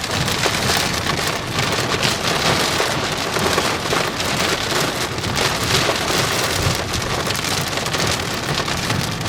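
Heavy rain pelting a moving vehicle's roof and windshield, a dense steady patter of many drops, over a low rumble of the road.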